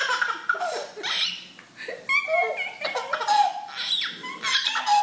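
A baby laughing in a string of short, repeated bursts of giggles.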